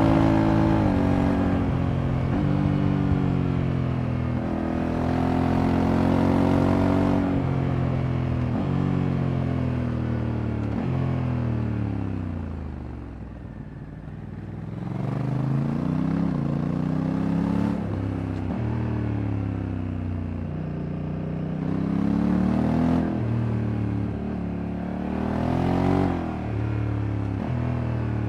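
Honda Africa Twin Adventure Sports 2024's parallel-twin engine accelerating, the revs climbing and dropping suddenly several times as the DCT gearbox shifts up. About halfway through the revs fall away as it slows, then it pulls through the gears again.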